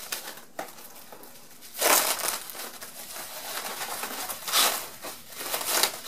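Sheets of small-cell bubble wrap being handled and pressed into place, rustling and crinkling, with louder crinkles about two seconds in and twice more later.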